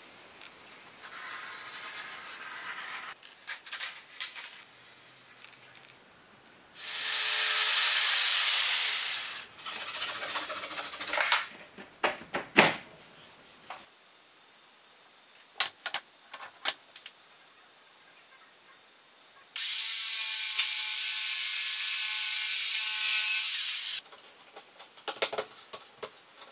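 Woodworking on door trim: rubbing and scattered knocks and taps as the casing strips are handled and fitted, broken by two loud, steady bursts of a power tool running. The first lasts a couple of seconds about a quarter of the way in, the second about four seconds near three-quarters of the way through.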